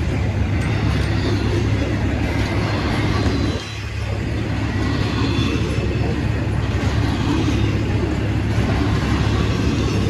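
Freight train rolling past: a loud, steady rumble and rail noise, with a brief dip just under four seconds in.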